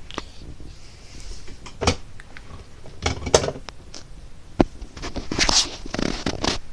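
Handling noise on a phone microphone: scattered knocks, clicks and rubbing as the phone is picked up and swung about and its lens is covered by a hand.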